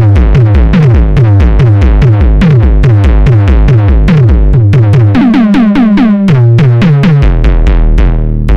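Arturia SynthX V software synthesizer, an emulation of the Elka Synthex, playing a bass preset: a rapid, evenly paced bass line of short struck notes, about six a second, that changes its pattern about five seconds in and settles on a held low note near the end.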